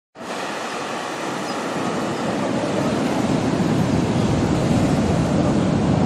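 Ocean surf washing onto a sandy beach in steady, even noise, with wind on the microphone. It cuts in suddenly from silence just after the start and grows slightly louder.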